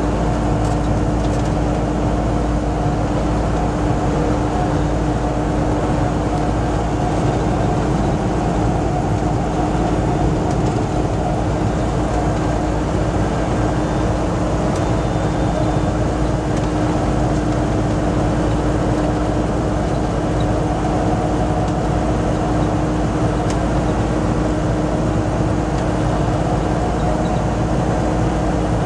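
Inside a semi-truck cab at highway speed: the diesel engine's steady drone with a held hum, over constant tyre and road noise.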